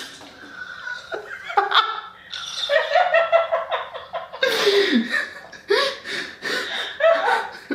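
A young man laughing hard, in several fits with short breaths between them.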